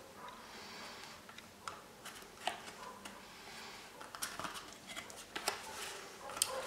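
Playing cards and a cardboard card box being handled close up: faint paper rustling, then a scattered series of short sharp clicks and snaps from about a second and a half in as the cards are fanned and the box flaps are worked.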